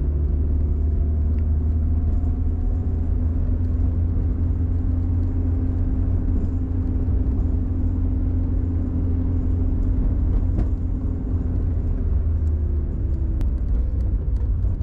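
Car engine running with low road rumble, heard from inside the cabin while driving; the engine note stays mostly steady, with a few light clicks in the second half.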